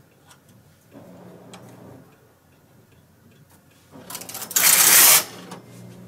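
A few faint clicks of steel needles being nudged into line on a Brother KH585 knitting machine's needle bed. About four seconds in comes a loud sliding rush of about a second as the carriage is pushed across the needle bed.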